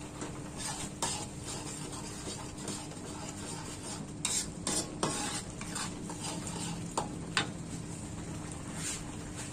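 Metal spatula stirring and scraping thick chilli spice paste in a steel wok while it fries with a light sizzle, with a few sharper clinks and scrapes of the spatula on the pan around the middle.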